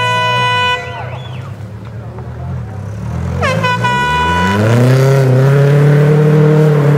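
Air horn blasts twice, the first ending about a second in and the second about three and a half seconds in, then a rally car's engine revs up, rising in pitch and getting loud as it accelerates.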